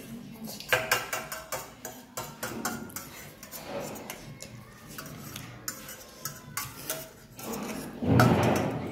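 Forks and a spoon clinking and scraping on stainless steel plates as noodles are eaten fast. A louder burst of noise comes about eight seconds in.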